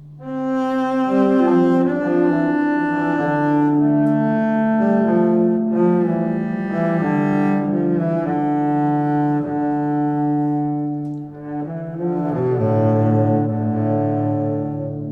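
Background music: slow, sustained notes in several voices at once, moving to new chords every second or so, with a short dip about eleven seconds in.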